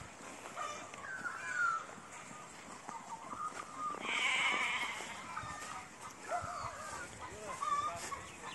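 Goats bleating, a string of short calls one after another, some with a wavering pitch.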